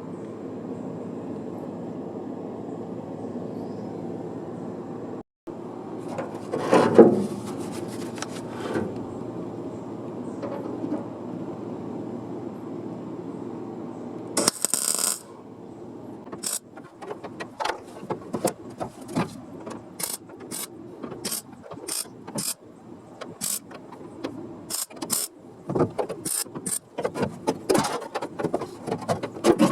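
Sheet-metal work on a car body repair panel: a steady mechanical hum for about the first half, a short loud burst about halfway through, then a run of irregular sharp metallic clicks and taps.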